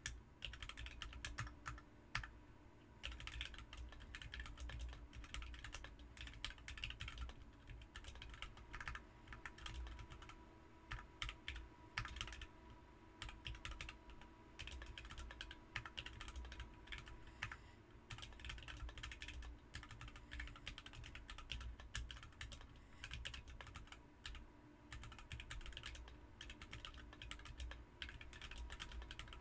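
Typing on a BM43 40% mechanical keyboard fitted with Ms Piggy switches: quick, steady runs of key presses and clacks, broken by a few short pauses.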